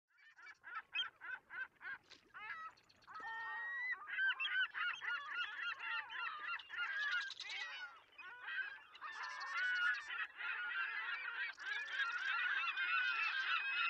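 A flock of birds calling. Many short calls that bend in pitch, at first a string of separate calls, then from about three seconds in a dense, overlapping chorus.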